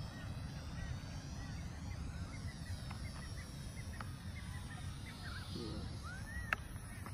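Birds chirping and calling, with one longer rising-and-falling call and a sharp click near the end, over a low wind rumble on the microphone. The faint whine of the Volantex Trainstar Mini's electric motor rises and falls as the plane flies overhead.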